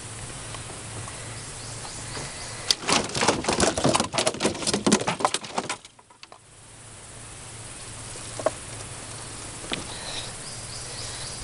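A freshly landed catfish flopping in the bottom of the boat: a rapid, irregular run of slaps and rattles starting about three seconds in and lasting about three seconds.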